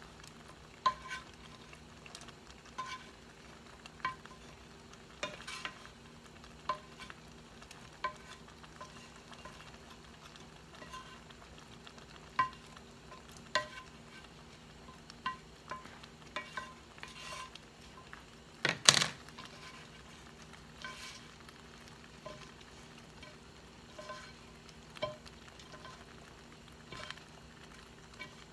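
Wooden spatula knocking and scraping against a skillet as seared kielbasa slices are pushed off into a pot of gumbo: a short clack every second or so, with one louder knock a little past two-thirds through.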